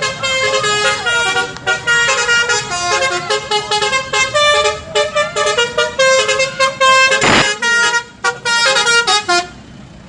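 Basuri telolet musical bus horn playing a fast tune, several horn tones jumping from note to note in quick blasts, cutting off about nine and a half seconds in. A short burst of noise sounds about seven seconds in.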